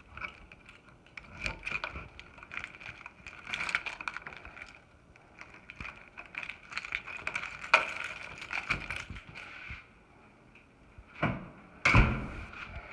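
A key rattling and clicking in a door lever-handle lock cylinder, with the latch and handle giving irregular metallic clicks. Sharper knocks come about eight and twelve seconds in. The lock is being worked with a key because it does not lock from the inside.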